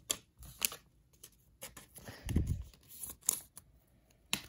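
Trading cards and a plastic card sleeve being handled and slid about on a desk mat: scattered light clicks and rustles, with a dull thump a little past halfway through.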